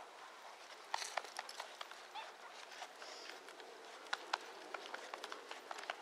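Thoroughbred horse moving over arena sand: soft, irregular hoofbeats with sharp clicks scattered through, bunched about a second in and again about four seconds in.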